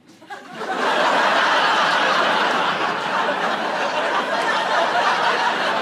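A large audience laughing, swelling up about half a second in and holding steady.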